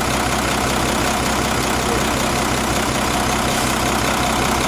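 Nissan FE6 diesel engine idling steadily.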